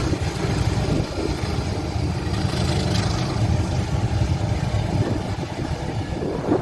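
Diesel locomotives and passenger coaches passing at close range: a steady, heavy rumble of engine and wheels on the rails.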